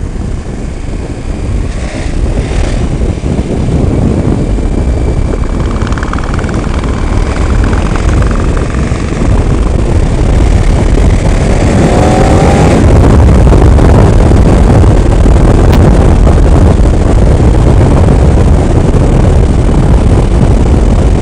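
Wind rushing over a helmet camera's microphone on a moving KTM motorcycle, with the bike's engine running underneath, growing louder as the bike picks up speed.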